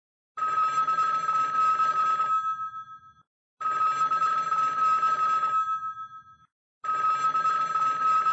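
An old telephone bell ringing three times. Each ring is a steady, rattling ring about two seconds long that fades out, and the rings start about three seconds apart.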